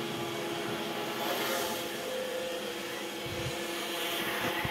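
Robot vacuum cleaner running: a steady whirring of its motor and brushes with a constant low hum.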